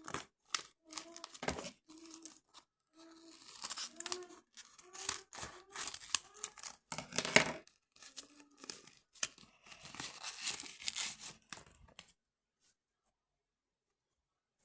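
Crinkling and tearing noises in irregular bursts, stopping about twelve seconds in.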